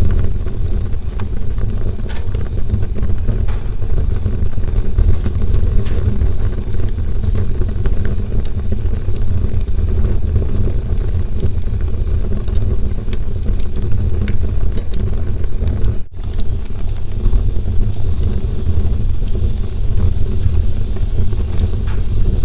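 Campfire burning: a steady low rumble of flames with scattered sharp crackles and pops. The sound cuts out for an instant about sixteen seconds in.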